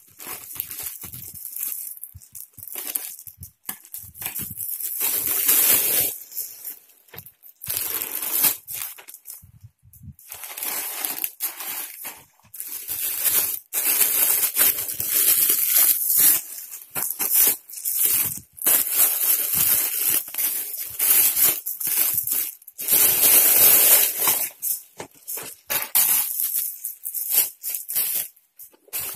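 Plastic packaging crinkling and rustling in loud, irregular bursts as a plastic mailer bag is cut open with scissors and the clear plastic wrap is handled and pulled off a thermal delivery bag.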